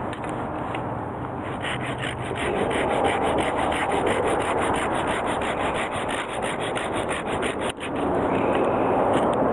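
A piece of hard firewood being cut with a hand saw: quick, even back-and-forth strokes, which break off briefly near the end before the scraping resumes.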